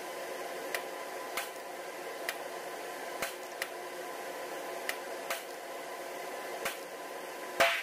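A string of short, sharp, quiet cracks at irregular intervals, with one much louder crack near the end: unsuppressed .22 LR rifle shots at an indoor range.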